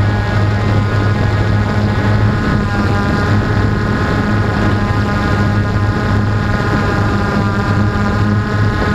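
Small drone's electric motors and propellers running with a steady buzzing whine in flight, a low hum under a higher whine.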